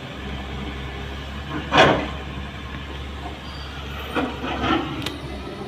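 Kobelco hydraulic excavator's diesel engine running steadily, with a loud crash of a bucketload of soil and rock landing in the dump truck's bed about two seconds in. Two smaller crashes follow near the end as the bucket digs into the earth bank.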